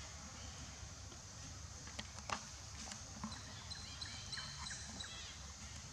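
Forest ambience: birds chirping faintly over a steady low rumble, with a few sharp clicks about two seconds in.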